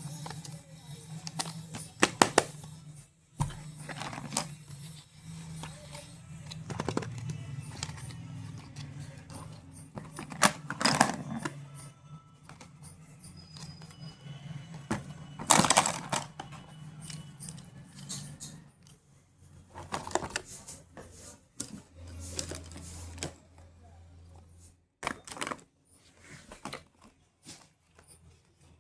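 Scattered clicks, taps and rustles of makeup cases and packaging being handled and opened, with sharper knocks now and then.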